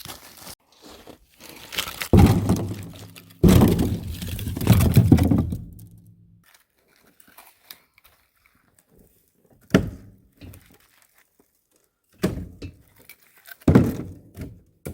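Cut firewood rounds being picked up and tossed: heavy thunks and crunching. A loud stretch comes about two seconds in and lasts a few seconds, then a few separate knocks follow near the end.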